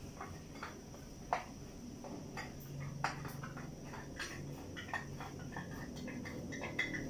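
Faint, irregular ticks and pops from food cooking in pans on a lit gas stove, over a low steady hum.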